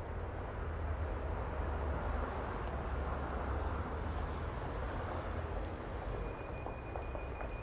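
Busy street traffic: vehicles passing with a continuous low engine rumble and road noise, a little louder in the middle. About six seconds in, a thin steady high-pitched tone comes in.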